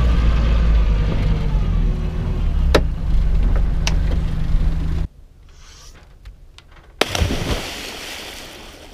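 A steady low rumble with two sharp knocks stops suddenly about five seconds in. About two seconds later a splash of water pours down in a homemade cockpit shower, then trails off.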